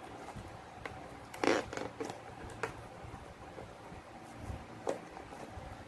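Handling noises from unpacked items and packaging: a few scattered clicks and rustles, the loudest a short rustle about a second and a half in.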